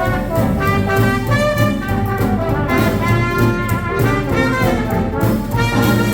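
Live swing jazz band playing an instrumental passage, with trumpet or cornet melody lines over a walking bass and rhythm section.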